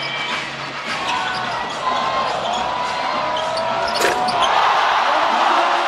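Basketball dribbled on a hardwood court amid sneaker squeaks, then a sharp hit about four seconds in as the jump shot reaches the rim and drops through the net. Right after, the arena crowd cheers.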